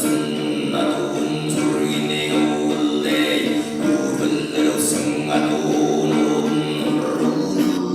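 Mongolian throat singing: a steady, held low sung drone with overtones sounding above it.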